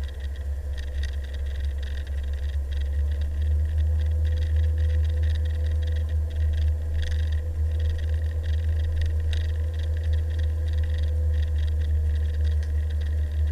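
Steady low rumble of wind and road noise on the microphone of a camera travelling along a road, with a faint steady hum running under it.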